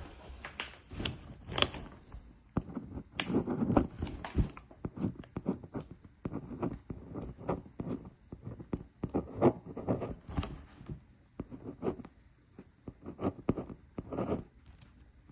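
Irregular rustling, clicks and scrapes of hands handling packaging and a marker pen.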